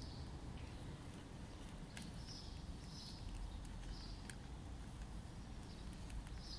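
Quiet outdoor ambience: a steady low rumble of wind or distant traffic, with a few faint short high chirps, like small birds, and a few soft clicks. No bells are ringing yet.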